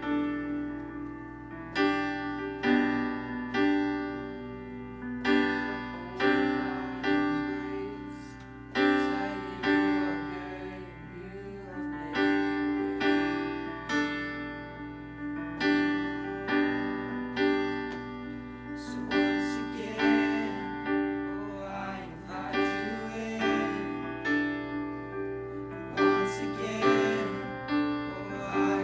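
Piano playing slow sustained chords, each struck and left to ring.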